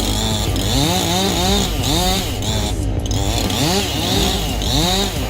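Chainsaw engine revved over and over, its pitch climbing and dropping about twice a second with a steady high whine above it.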